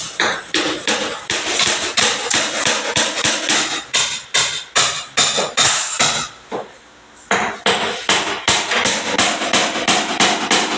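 A hammer striking repeatedly and fast, about four blows a second, with a short pause about two-thirds of the way through before the blows resume.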